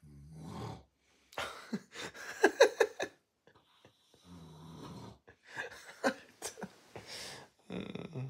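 A sleeping man snoring loudly and irregularly: low rattling snores broken by gaps, with a run of louder, sharper snorts about two seconds in.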